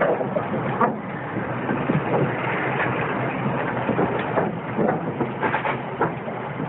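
Spanish 240-class 'Oeste' 4-8-0 steam locomotive rolling slowly along the track. A steady rushing noise runs under frequent irregular clanks and knocks from its wheels and running gear.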